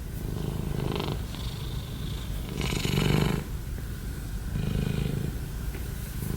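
Domestic cat snoring in its sleep: a low, rasping breath every second or two, the loudest about halfway through, a snore like a middle-aged man's.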